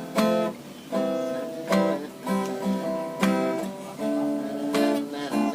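Acoustic guitar strumming chords, a new strum roughly every second, with no singing.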